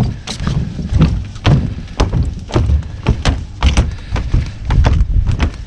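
Irregular knocks and thumps, several a second, of footsteps and gear being handled on a small sailboat's deck as it is readied to cast off.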